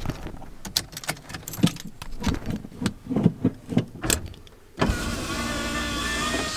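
Clicks, knocks and rustling of things being handled inside a pickup cab, with a sharp thud about four seconds in. Near the end a steady whir starts, its pitch falling slowly.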